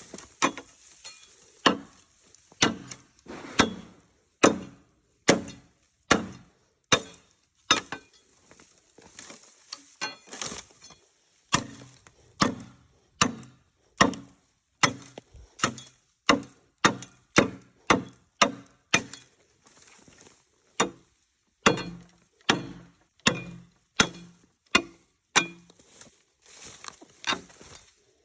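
Repeated chopping blows of a blade into bamboo, a sharp strike about every 0.8 seconds with two short pauses.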